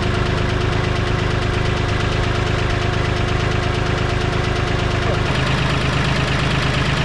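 An engine idling steadily with a fast, even knock. About five seconds in the sound cuts and the engine note carries on a little lower and heavier.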